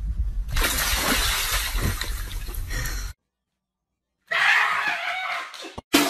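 Ice cracking and breaking up with a crashing, crunching noise that starts about half a second in and cuts off abruptly after about two and a half seconds. After a brief silence a second, shorter burst of noise follows.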